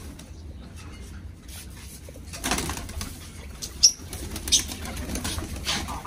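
Domestic pigeons flapping their wings in several short bursts.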